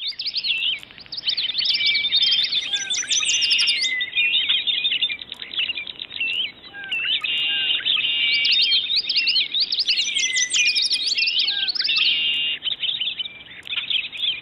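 A dense chorus of many small songbirds chirping and twittering, with quick overlapping high calls. The same run of calls comes round again about every seven seconds.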